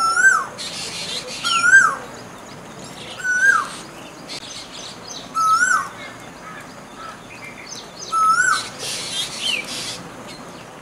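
Asian koel calling: a single loud note that rises and then drops sharply, repeated five times with irregular gaps of about two to three seconds. Fainter, very high chirps from other birds sound in between.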